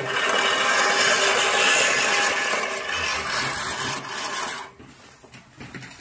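Manual push reel lawn mower whirring as its blade cylinder spins and cuts grass while being pushed. The whirr cuts off abruptly near the end as the mower stops.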